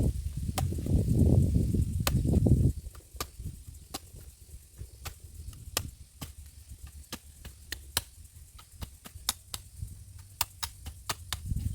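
A blade chopping at a coconut: a quick, irregular run of sharp strikes, about three a second, after a low rumble in the first few seconds.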